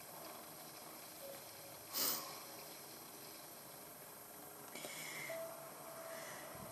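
A woman crying quietly: one short, sharp sniff about two seconds in, then crying breaths from about five seconds on.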